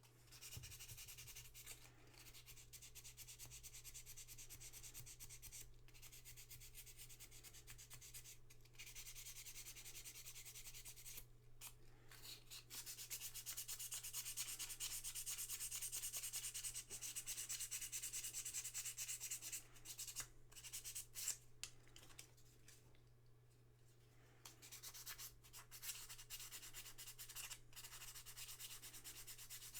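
Rubbing and scrubbing strokes on a small part, a fine scratchy hiss in several spells with short breaks: parts of an intermittently working 1940s Willys MB jeep headlight switch being cleaned by hand.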